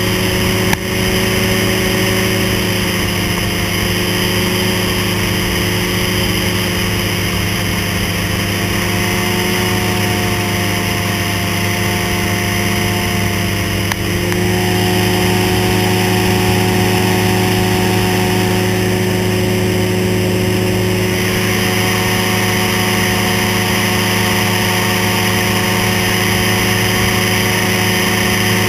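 Ultralight trike's engine running steadily in flight, with airflow rushing past the open cockpit. Its note shifts slightly and grows a little louder about halfway through, and there is one brief click about a second in.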